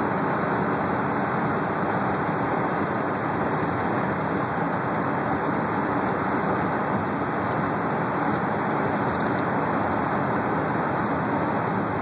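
Steady engine and road noise heard inside the cabin of a small transit bus driving along a highway.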